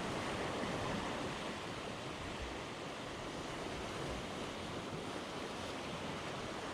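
Sea surf washing steadily against a rocky shore.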